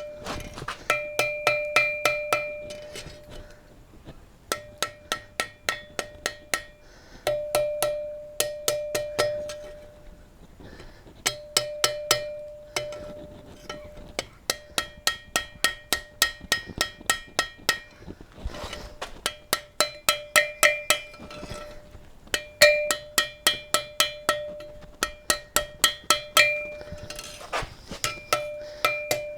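Hand hammer striking a hot half-inch square steel bar on an anvil, in runs of quick blows about three to four a second with short pauses between runs, each blow setting the anvil ringing with a bell-like tone. The smith is cleaning up the forged shape of the pendant.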